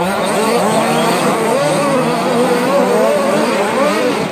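Several radio-controlled short-course trucks racing together, their motors whining and constantly rising and falling in pitch as they accelerate and brake around the track.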